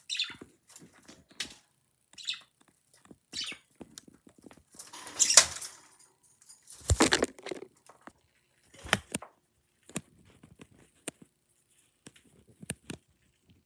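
Pet budgerigars and a cockatiel at a vegetable dish: scattered clicks and rustles of pecking and shuffling, with two louder flurries of wing flapping about five and seven seconds in as birds fly to the dish.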